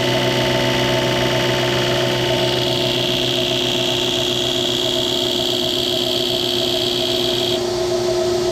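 Metalworking machine tool running steadily with a constant hum and a high whine on top, which stops shortly before the end.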